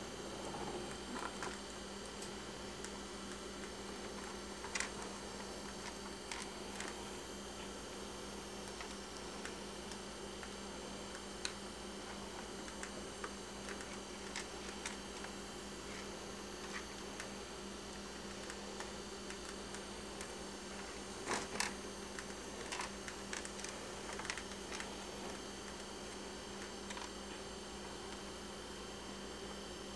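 Steady electrical hum, with a few faint, scattered clicks and scrapes over it.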